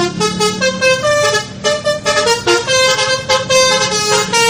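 A multi-tone vehicle horn playing a quick tune of changing notes over a steady low rumble.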